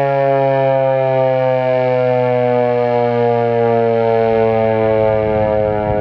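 ASC T-128 electronic siren sounding a steady tone that sinks slowly in pitch, during a test of the warning siren. A low rumble comes in after about four seconds.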